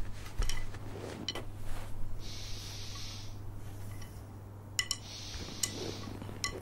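Quiet room with a steady low hum, a few light clicks and taps of objects being handled, and two short hissing swishes, one about two seconds in and one about five seconds in.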